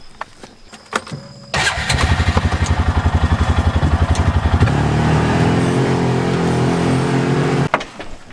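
A side-by-side UTV's engine cuts in suddenly and idles with a fast, even pulsing. About three seconds later the note smooths out and rises a little as the vehicle is put in gear and pulls away, then the sound stops abruptly.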